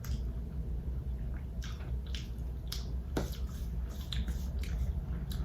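Close-miked eating sounds: chewing, with irregular wet mouth clicks and crackles, over a steady low hum.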